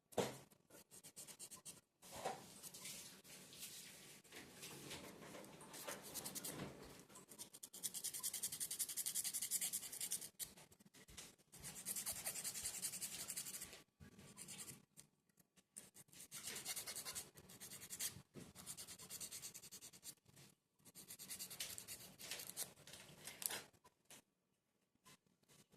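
Laser-cut plywood kit pieces scraping and rubbing against each other as they are fitted together by hand, in several scratchy bursts of a few seconds each with short pauses between.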